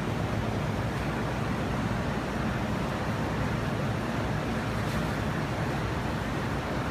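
Rooftop air-conditioning unit running: a steady, even rushing noise with a deep hum under it.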